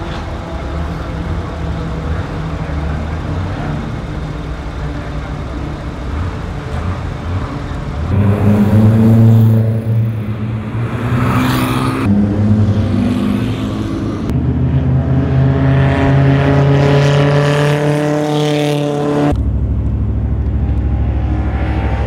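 Race car engines in a string of short clips. For the first several seconds there is a steady engine note. After that, louder engines accelerate with rising pitch, and the sound changes abruptly at each cut.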